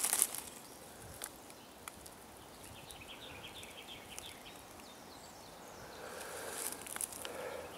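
Quiet outdoor ambience among trees, with a few sharp crackles in the first moments and a faint quick run of high chirps a few seconds in.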